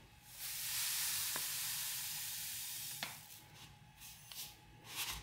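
Coarse semolina poured in a steady stream, a dry grainy hiss, with a couple of light ticks from the glass. A second, shorter pour comes in the later part.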